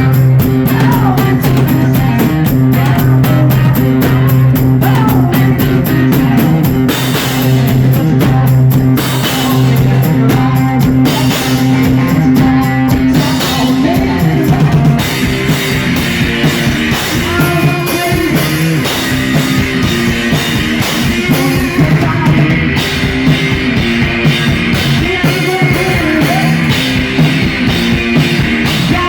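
Live rock music: distorted electric guitar and a drum kit playing loud and driving, with the guitar's low sustained notes giving way to a busier pattern about halfway through.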